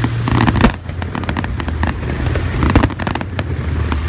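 A fireworks display bursting: a rapid run of bangs and crackles, the loudest about half a second in and again near three seconds, over a steady low rumble.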